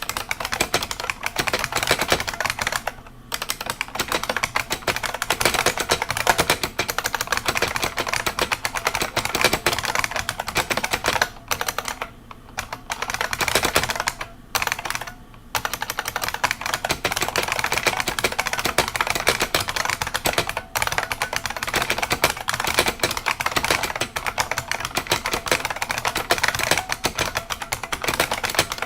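IBM Model M buckling-spring keyboard being typed on fast and continuously, a dense stream of loud key clacks with a few short pauses, around 3, 12, 14 and 15 seconds in and once near 20 seconds.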